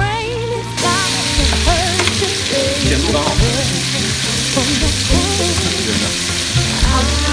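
Green peppers and sliced pork sizzling in a hot nonstick frying pan as they are stirred and turned with a wooden spatula, the hiss louder from about a second in. A song with a singer plays behind it.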